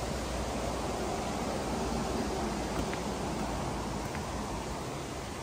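Steady rushing noise of Multnomah Falls, an even, unbroken roar of falling water.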